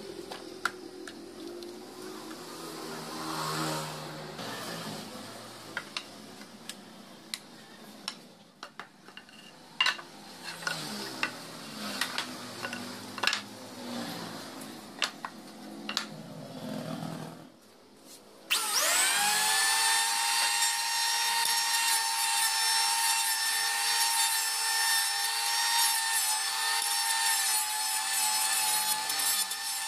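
Light knocks and clicks as wooden boards are handled. About two thirds of the way in, a Maktec electric hand planer, mounted upside down as a benchtop jointer, switches on: its motor spins up quickly and runs with a loud, steady high whine.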